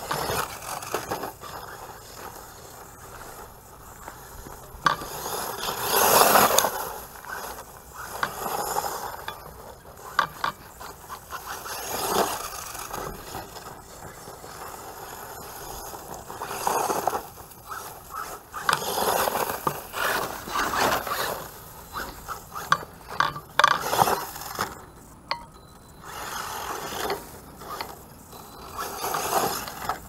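Brushless RC monster truck on a 3S battery, driven in repeated short bursts of throttle. Its motor and drivetrain whine in uneven surges, with the tyres scrabbling over dirt and straw.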